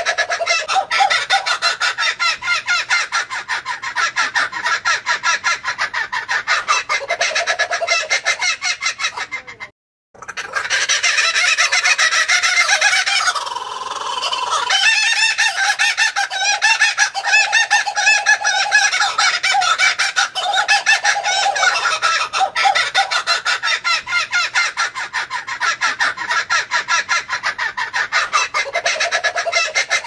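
Laughing kookaburra calls: a continuous run of rapid, chuckling 'laughing' notes. They break off into silence for a moment about ten seconds in, then carry on.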